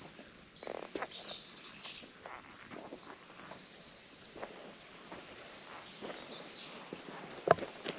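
Wild birds calling, with one longer high call just past the midpoint and scattered short chirps, over faint outdoor noise and light scuffing ticks. A single sharp knock sounds near the end.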